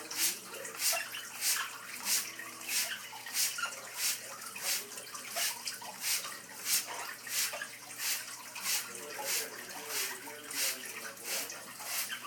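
Hand spray bottle squirting water in short, regular spurts, about three every two seconds.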